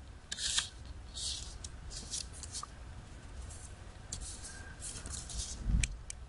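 Origami paper rustling and swishing as fingers fold the sheet and run along the folds to crease them flat, in a string of short brushing strokes. A soft low thump comes near the end.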